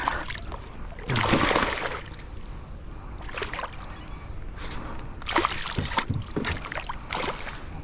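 A hooked smallmouth bass splashing at the surface beside the boat as it is played in. There is one longer, louder splash about a second in, then several short splashes.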